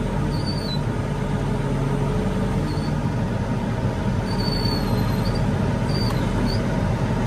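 Large farm tractor's diesel engine running steadily at an even speed. A few faint, short high chirps sound over it.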